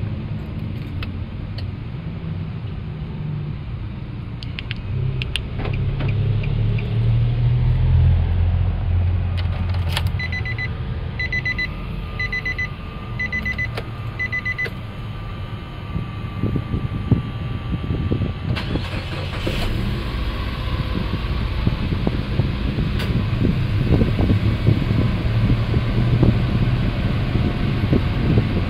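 A low rumble, then a run of about five short dashboard chimes near the middle. A little over halfway through, the 2018 Nissan Latio's 1.2-litre engine starts and settles into a steady idle.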